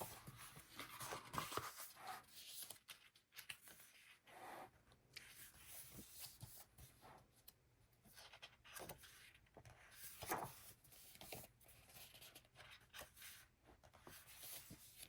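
Faint rustling of paper and soft handling noises as the glossy pages of a photo book are turned and handled, with a few louder brushes along the way.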